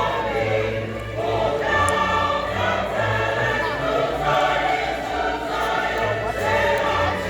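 Choir singing in parts, holding long notes over a steady low line.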